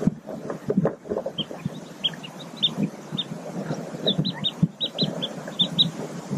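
Newly hatched mallard ducklings peeping under the hen on the nest: a quick run of short high peeps that starts about a second in, over low rustling.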